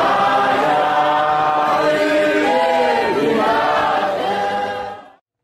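A choir singing, several voices holding long notes together; the singing fades out about five seconds in.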